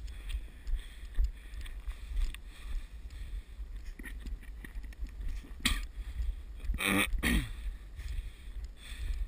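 Footsteps in snow, walking uphill at a steady pace, over a low rumble of wind on the microphone. A short, louder rushing noise comes about two-thirds of the way through.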